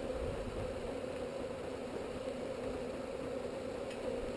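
Steady, even drone of many honeybees buzzing around an opened, disturbed hive.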